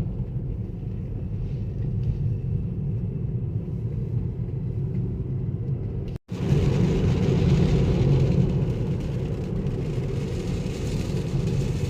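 Steady road and tyre noise of an electric car driving on wet road in the rain: a low rumble with a hiss of tyres on water. The sound cuts out for an instant about six seconds in, and the hiss is louder after it.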